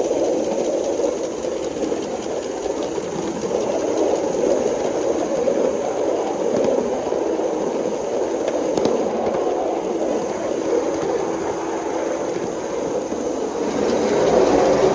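3.5-inch gauge LBSC Juliet live steam locomotive running along the track, a steady mix of engine and wheels rolling on the rails. It grows louder near the end as the train passes into a covered shed.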